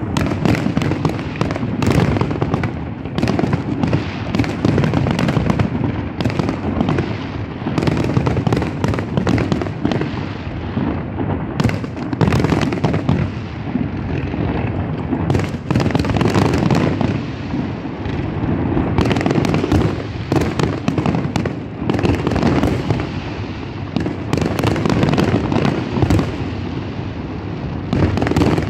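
Fireworks display: aerial shells launching and bursting in a dense, unbroken barrage of bangs, many a second, with no pause.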